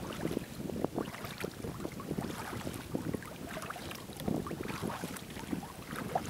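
Choppy water slapping and splashing irregularly against a sea kayak's bow as it is paddled, with wind on the microphone.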